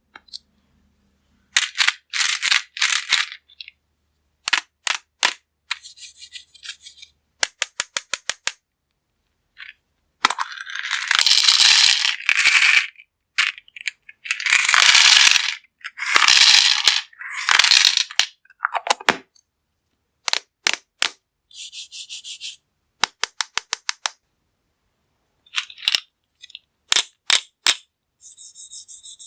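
Hard-shelled candies dropping and clattering into a hard container. There are quick runs of sharp clicks and several longer, denser rattling pours, separated by short pauses.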